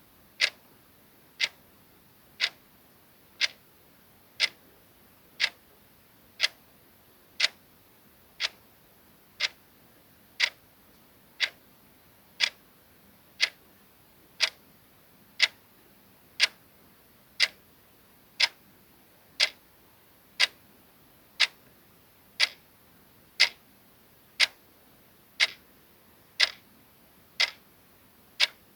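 Soft clock ticking sound effect: one short tick every second, perfectly regular.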